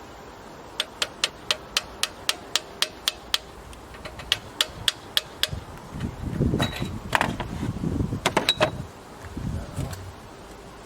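Ratchet wrench clicking in even runs of about four clicks a second, turning the new oxygen sensor into the exhaust. This is followed by a few seconds of knocks and clatter of tools and parts being handled.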